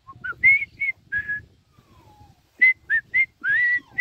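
A person whistling short, quick notes in two bursts about a second apart, the last note sliding upward, calling the puppies.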